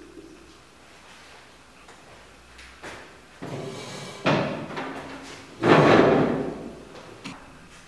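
Classroom furniture knocked about as someone sits down at a desk: a sharp thump about four seconds in, a louder, longer thump about a second and a half later, then a short click near the end.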